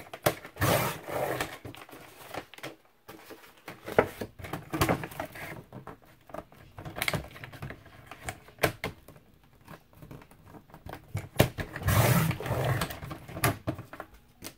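Thin cereal-box cardboard being handled and cut on a sliding paper trimmer: several rustling, scraping strokes with sharp clicks and knocks in between, the longest strokes about a second in and near the end.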